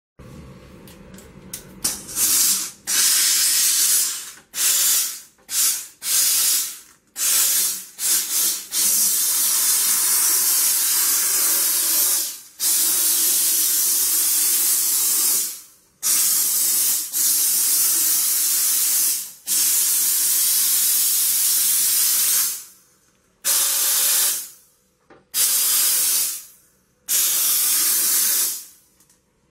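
Sauber Brilliance steam cleaner jetting steam with a hiss that starts and stops: a run of short quick bursts, then several long blasts of a few seconds each, then shorter bursts again near the end.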